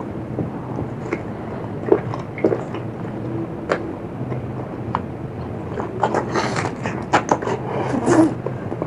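Close-miked eating: chewing with scattered sharp crunches and clicks, bunching into a run of crunchy bites about six seconds in.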